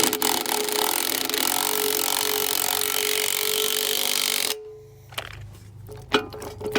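Power tool running steadily for about four and a half seconds, then stopping suddenly.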